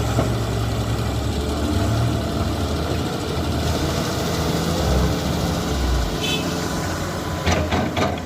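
Heavy diesel engine running steadily and low, with a few sharp knocks about seven and a half seconds in.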